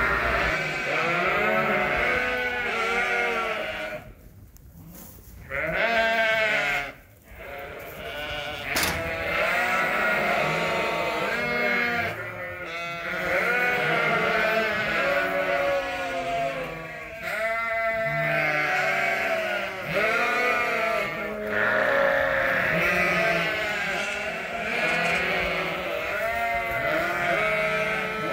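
A pen of freshly weaned Suffolk lambs bleating in a constant overlapping chorus of many voices, dropping quieter briefly about four seconds in and again about seven seconds in.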